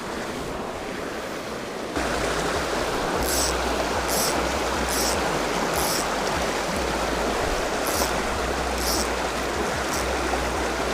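Mountain stream water running steadily, louder from about two seconds in. A short high chirp repeats about once a second over it.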